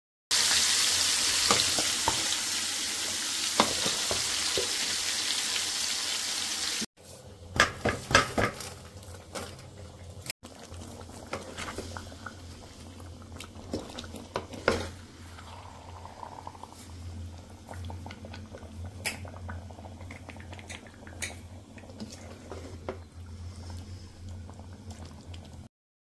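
Chicken in masala cooking in a pot on the stove, sizzling. A loud hiss fills the first several seconds, then the sizzle is quieter, and a wooden spatula stirs and clicks and knocks against the pan now and then.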